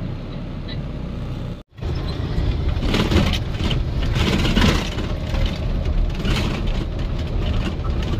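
A vehicle engine running steadily with a low hum. After a sudden cut less than two seconds in, the noise becomes louder and rougher.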